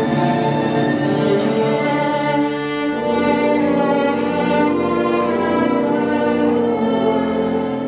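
Classical violin playing slow, sustained notes with vibrato over a lower accompaniment, beginning to fade out near the end.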